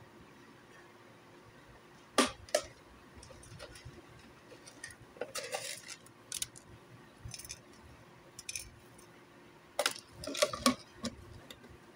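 Steel spoon clinking and scraping against a steel plate of poha: a few scattered sharp clinks, two a couple of seconds in and a louder cluster near the end.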